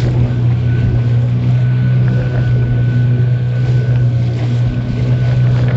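Small open tour boat's engine running steadily at cruising speed, a constant low drone, with water washing past the hull and wind on the microphone.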